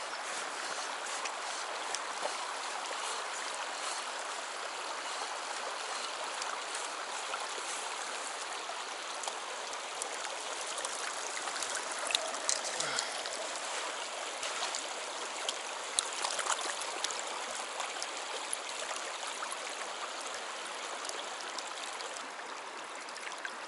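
Shallow, rocky stream running over cobbles in a steady rush, with a few brief sharp sounds about halfway through.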